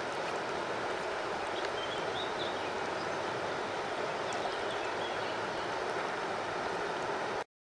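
Steady rush of a river's flowing water, even and unbroken, with a few faint high chirps about two seconds in; the sound cuts off abruptly just before the end.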